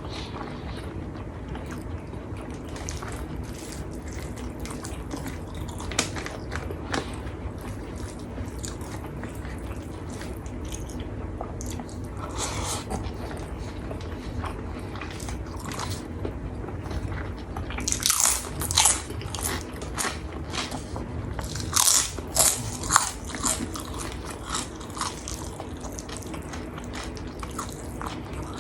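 Close-up eating sounds of a person chewing a meal of rice and side dishes, with small wet clicks and crunchy bites. There are bursts of louder crunching about 18 seconds in and again around 22 seconds.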